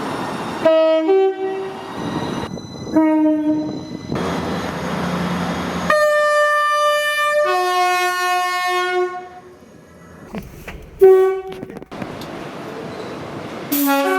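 Train horns in a series of spliced clips: short blasts about a second in and three seconds in, a long horn sounding several notes at once from about six to nine seconds, changing pitch partway, then short blasts near eleven seconds and at the very end. Between the blasts comes the noise of trains running.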